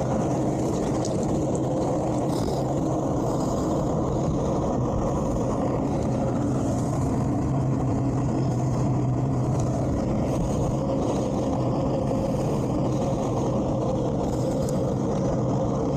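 Towboat's engine running steadily at low speed, an even low hum that holds the same pitch throughout.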